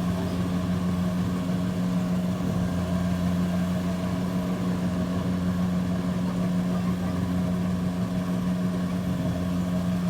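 An engine running steadily at constant speed, with a strong, unchanging hum throughout.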